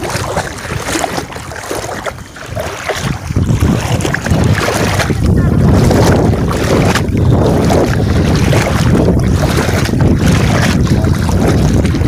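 Water sloshing and splashing around legs wading through waist-deep floodwater, with wind buffeting the microphone; louder from about four seconds in.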